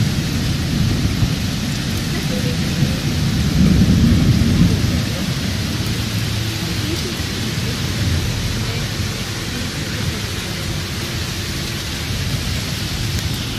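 Heavy downpour: rain pouring steadily onto a flooded street and wet paving. A deep rumble swells about four seconds in.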